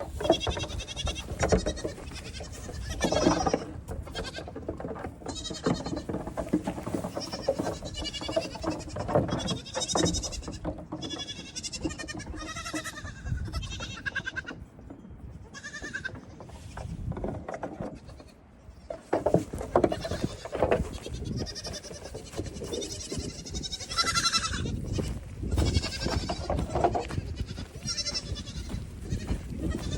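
Many young goat kids bleating over one another, high wavering calls overlapping almost without pause, with a short lull a little past the middle. Frequent short knocks and thumps run through the calls.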